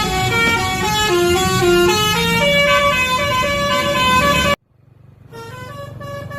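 Bus 'telolet basuri' musical air horn playing a quick stepped melody of several tones at once, over a low steady hum. It cuts off abruptly about four and a half seconds in, and after a short gap another horn melody starts.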